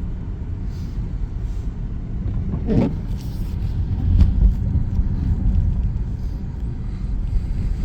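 Low, steady road and engine rumble inside a car's cabin while driving on an icy road, with a louder low bump a little after four seconds.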